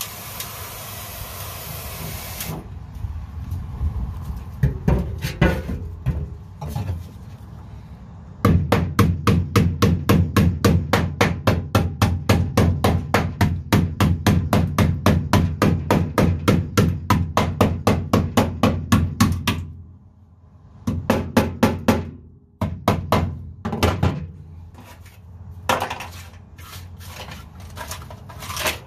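An aerosol can hisses briefly as it sprays the car's tar sound-deadening mat on the steel floor pan, frosting it white. A hammer then pounds the frozen mat in a fast run of sharp blows, about four to five a second for some ten seconds, followed by scattered single blows as the brittle deadening cracks into chunks.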